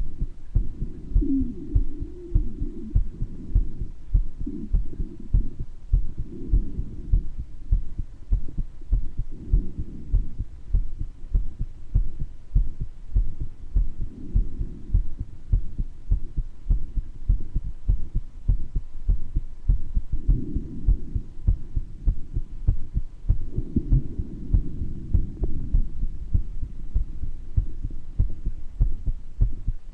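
A person's heartbeat picked up close on the chest: a steady run of low beats with a heart murmur. Now and then breath sounds rise over them, with an occasional wheeze from a mild bronchitis.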